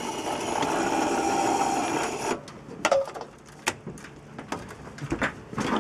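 Electric hoist motor running steadily for about two seconds, then stopping abruptly, followed by a few scattered clicks and knocks of metal hardware.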